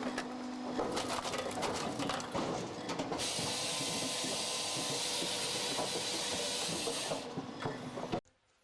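Firewood processor running: clattering and knocking of the machine and wood, then a loud steady hiss for about four seconds. The sound cuts off suddenly near the end.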